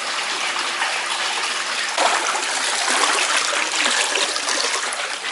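Running water, a steady rushing that gets louder about two seconds in.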